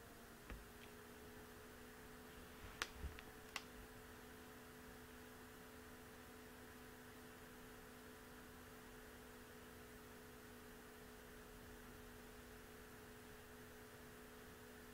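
Near silence with a steady low electrical hum, broken by a few sharp computer mouse clicks in the first four seconds.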